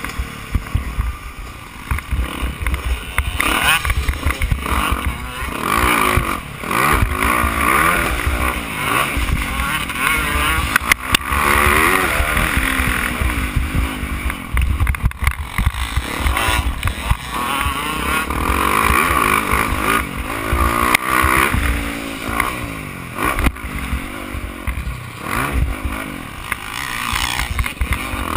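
Motocross bike's engine revving up and falling back over and over as it is ridden hard around a dirt track, with ride noise from the rough ground, heard from a camera mounted on the bike.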